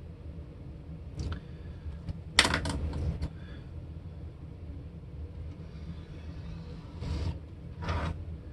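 Small handling sounds on a laminate workbench: a quick clatter of sharp taps about two and a half seconds in as a pen is put down, then two short scraping swishes near the end as a metal ruler and a strip of masking tape are moved. A steady low hum sits underneath.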